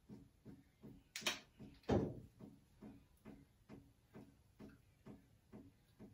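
Handling of a small plastic micellar water bottle: a sharp click about a second in, then a louder dull thump. A soft, steady ticking about two and a half times a second runs underneath.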